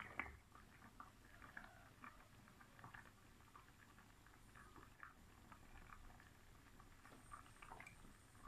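Faint popping and bubbling of corn porridge simmering in a pot, with one small knock just after the start.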